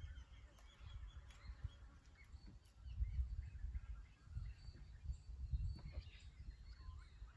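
Outdoor ambience: wind buffeting the microphone as an uneven low rumble that swells and drops, with small birds chirping faintly.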